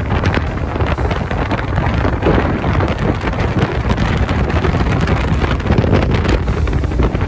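Wind buffeting the microphone of a camera held by a pillion passenger on a moving motorcycle, with the motorcycle's engine and road noise underneath.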